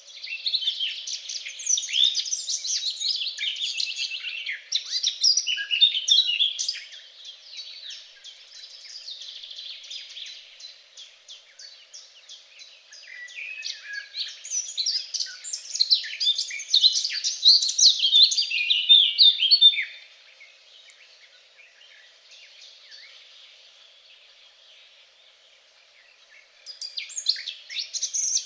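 Songbirds singing rapid, varied phrases of high chirping notes, in two loud bouts separated by a quieter spell, then a lull of several seconds before song starts again near the end.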